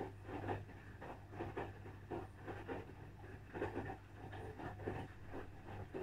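Asko Pro 9 kg front-loading washing machine in its wash cycle: the drum turning slowly with clothes tumbling and swishing in the water, soft irregular rustles and thuds over a steady low hum.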